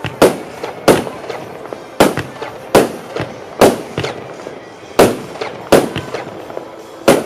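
Heron Element G compound fireworks cake firing: about nine sharp bangs at uneven intervals of roughly a second, each one a shell bursting in the air.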